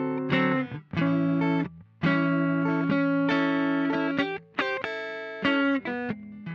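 Outro music played on an electric guitar: held chords that stop short several times, with brief pauses between the phrases.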